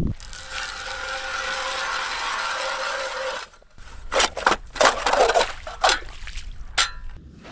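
A steady hiss for about three seconds, then a hand ice auger cranked down through thin ice, its blades grinding in rapid strokes, about three a second, for some three seconds.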